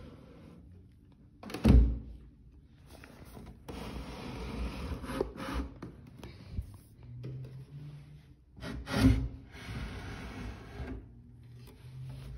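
Handling noise: rubbing and brushing against the phone's microphone, broken by two heavy thumps, about two seconds in and again about nine seconds in.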